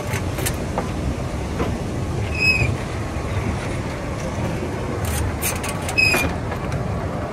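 La Trochita's 750 mm narrow-gauge wooden passenger coaches rolling past close by, wheels rumbling and clacking over the rails, with two short high squeals about two and a half seconds and six seconds in.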